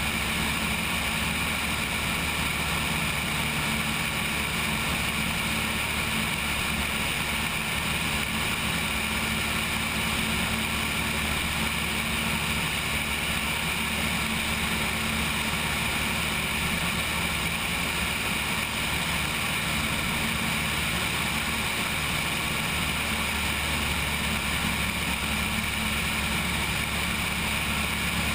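Cessna 172's piston engine and propeller droning steadily in flight, with a hiss of air rushing over the wing-mounted camera.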